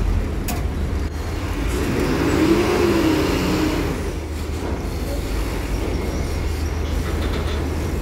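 Diesel bus engines running as buses drive onto a ferry's vehicle deck: a steady low rumble, with one engine's pitch rising and falling about two seconds in.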